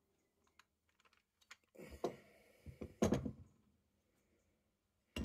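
Metal parts of an old breast drill clicking and knocking as it is taken apart by hand, its toothed drive gear and spindle being worked off the frame. A few light clicks come first, then a run of louder knocks and rattles about two to three seconds in, and a sharp knock at the very end.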